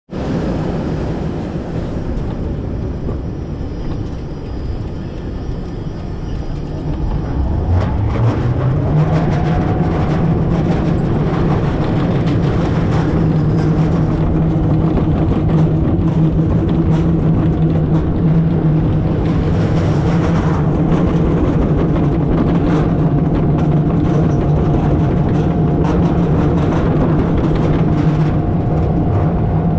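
An amusement ride's drive running with a heavy rumble. About eight seconds in, a motor hum rises in pitch as the ride spins up, then holds at one steady pitch as the ride runs at speed.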